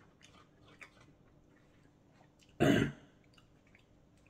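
A person's single short cough about two and a half seconds in, amid faint clicks of a fork against a bowl.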